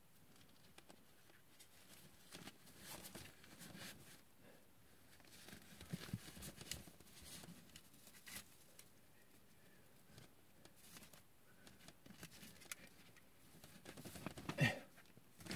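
Faint rustling and light clicks of hands handling a Santa hat and tinsel garland on a large plastic action figure, with one brief louder sound near the end.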